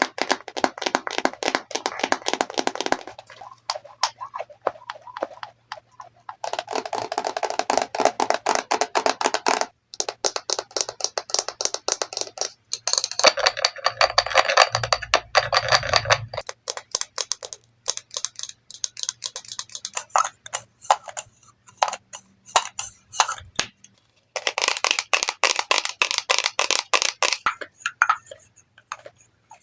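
Rapid tapping on makeup products and their cases, in quick runs of many taps lasting a few seconds each, with short pauses between.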